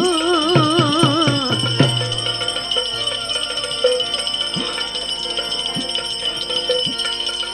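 Bhajan music: a long sung note with vibrato dies away about a second and a half in. The instrumental accompaniment carries on, with a steady high ringing and drum strokes about once a second.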